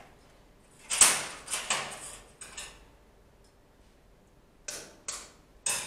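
A knife tapping and cracking a hen's eggshell: a run of short, sharp clicks and knocks, the loudest about a second in, then a pause and a few more near the end.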